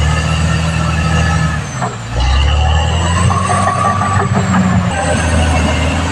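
Caterpillar D6R XL crawler bulldozer working: its diesel engine runs steadily under load, dipping briefly about two seconds in, with a high metallic squeal from the tracks in the middle.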